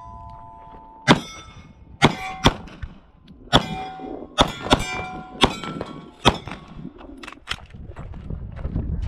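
A 9mm Glock pistol firing about a dozen shots at uneven spacing, roughly one every half second to a second. Each shot is answered by the clang of a hit steel target plate, which rings on briefly.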